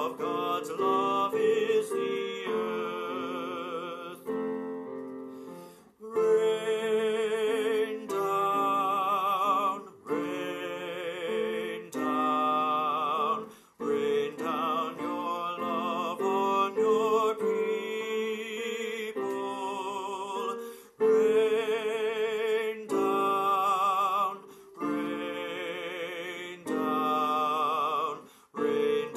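A soprano voice singing a hymn with vibrato over piano accompaniment, in phrases of several seconds separated by short breaks.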